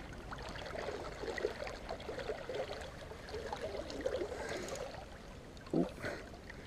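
River water flowing and gurgling, with small irregular trickling splashes.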